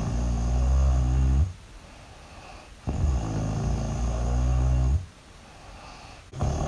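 Loud, low snoring from a sleeper. Each snore lasts about two seconds, one ends just after the start, a full one follows in the middle, and another begins at the very end, with quieter pauses between.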